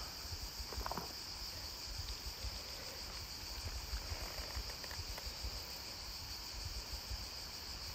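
Crickets chirring in a steady, high-pitched drone, with a low rumble underneath.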